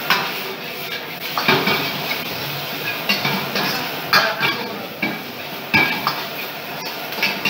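Long metal ladle clanking and scraping against a steel wok as noodles are stir-fried, with a steady sizzle from the pan. The ladle strikes the wok at irregular intervals, about once a second.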